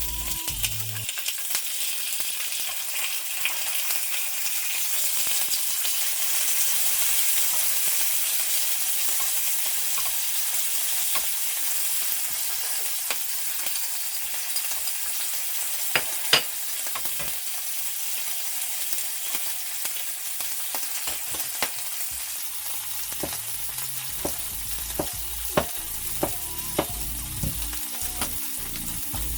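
Food frying in olive oil in a hot pan, a steady sizzle throughout. A few sharp clicks and pops stand out, the loudest about sixteen seconds in and a cluster near the end.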